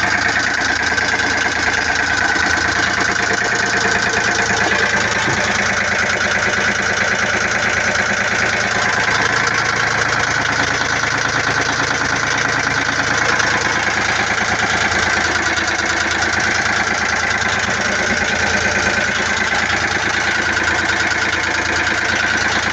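Volvo Penta 2003 three-cylinder marine diesel idling steadily.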